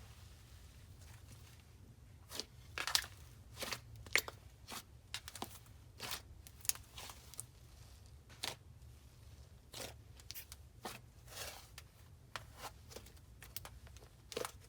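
Slime being squished and poked by hand, giving irregular crunchy crackles and small pops, starting about two seconds in.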